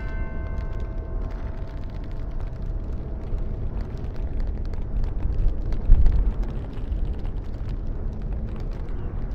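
Strong wind blowing with a deep, steady rumble, swelling into a louder gust about six seconds in. A ringing, bell-like tone fades away over the first few seconds.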